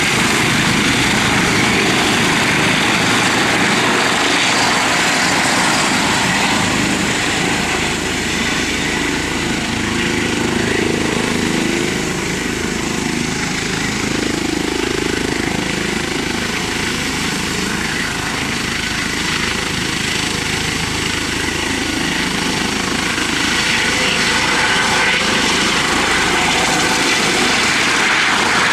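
Eurocopter EC135 helicopter's turbine engines and rotors running loud and steady at close range as it lifts off and hovers. The sound eases a little in the middle and grows again near the end as it climbs away.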